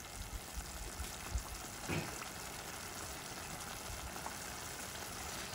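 Grated tomato and onion frying in oil in a stainless steel pan, a steady sizzling hiss, with a single soft knock about two seconds in.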